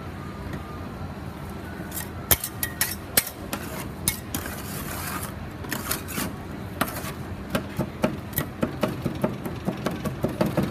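Metal spatulas scraping and clicking on the stainless steel cold plate of a rolled ice cream freezer as green tea ice cream base freezes, then chopping it with rapid clinks that come faster near the end, over a steady background hum.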